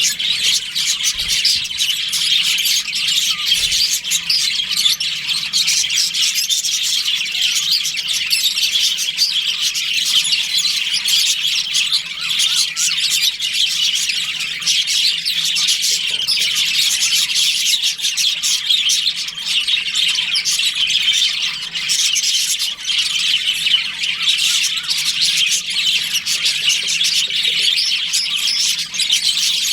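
A colony of budgerigars chattering and chirping together, many birds at once in a dense, continuous high-pitched twitter with occasional squawks.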